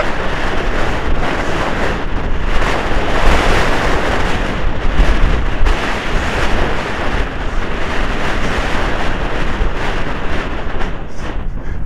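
Heavy wind buffeting a helmet-camera microphone while the rider gallops a polo pony, a loud steady rumble and rush, with a few knocks near the end.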